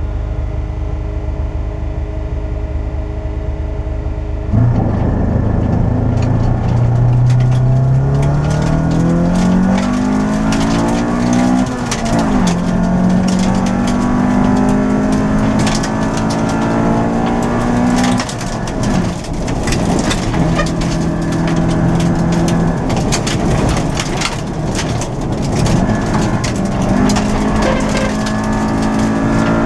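Inside a front-wheel-drive Honda Civic rally car: the four-cylinder engine holds steady revs on the start line, then launches about four and a half seconds in. It revs up in rising sweeps through the gears, dropping in pitch at each shift, while gravel crackles against the underside.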